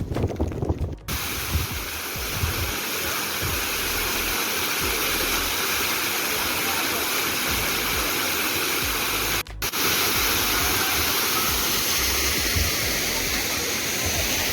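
Waterfall in full monsoon flow: a steady, even rush of falling water, starting abruptly about a second in. Before it, wind buffets the microphone. The rush breaks off for an instant about nine and a half seconds in, then carries on unchanged.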